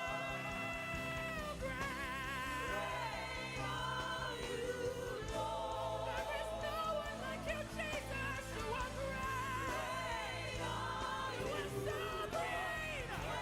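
Gospel worship singing: voices singing with vibrato over a sustained, steady low accompaniment.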